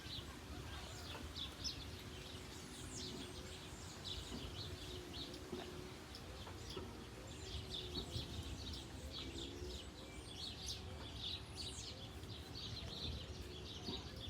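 Many small birds chirping and twittering throughout, with farm chickens calling in a low, drawn-out voice for several seconds in the middle, over a steady low background rumble.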